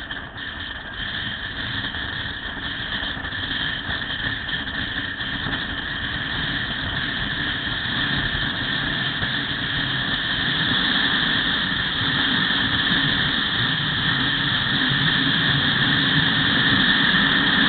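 Riding a small motorcycle on a highway: wind rushing over the bike-mounted camera's microphone, with the motorcycle's engine running underneath, growing steadily louder.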